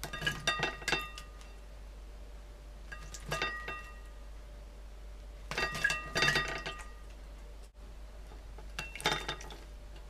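A yellow-collared lovebird bathing in a shallow ceramic plate of water, splashing and flapping in four separate bursts. Water and wings strike the plate, which rings briefly with each burst.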